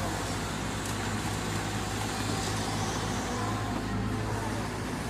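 SANY SY155W wheeled excavator's diesel engine running steadily as the machine works, loading earth into a dump truck; an even, unchanging engine hum.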